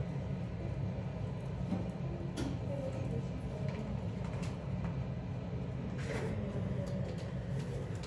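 Steady low background rumble, with a few faint clicks or taps scattered through it.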